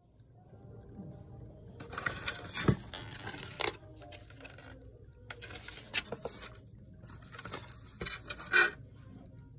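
Foam takeout container being handled: three bursts of scraping and rustling with sharp clicks. The loudest come about a third of the way in and near the end.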